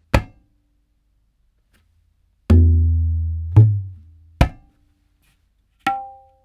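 Tabla strokes. A short, dry closed slap comes first. Then two loud, booming open strokes on the bass drum (bayan), the second pitched a little higher, and another dry closed slap. Near the end comes a ringing open stroke on the smaller treble drum (dayan).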